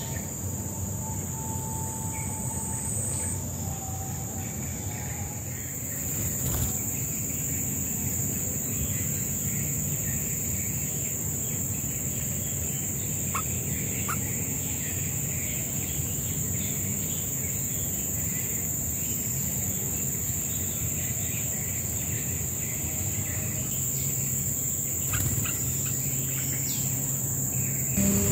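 Bulbul nestlings begging in the nest with rapid, high chattering calls as they are fed, over a steady high-pitched insect drone.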